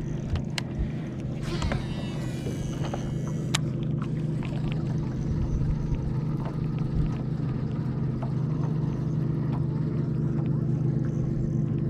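A cast with a Shimano Curado DC baitcasting reel: a falling, whirring whine from the spinning spool and its digital brake about a second and a half in, ending in a click when the spool stops. A steady low motor drone runs underneath.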